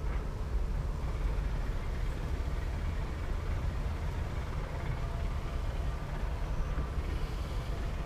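Honey bees buzzing around an opened hive, over a steady low rumble.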